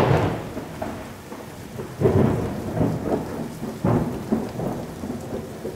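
Thunderstorm sound effect: steady rain with heavy thunder rumbles that swell three times, about two seconds apart.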